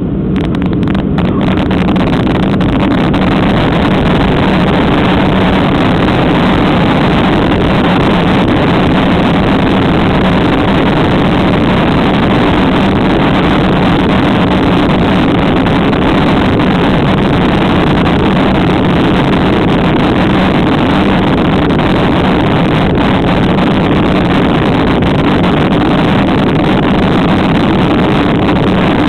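Jet airliner engines running at takeoff thrust, heard from inside the passenger cabin over the wing, with the rumble of the wheels on the runway: a loud, steady noise with a low drone that holds even.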